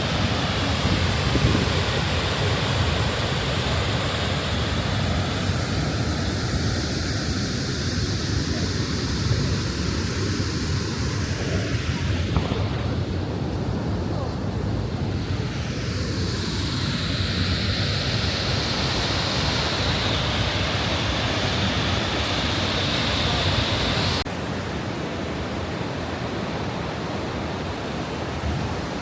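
Steady rushing noise of a large waterfall, mixed with wind on the microphone; it drops a little in level suddenly about 24 seconds in.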